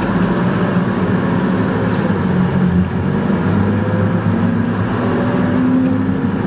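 A motor vehicle running steadily, its engine note drifting slightly up and down.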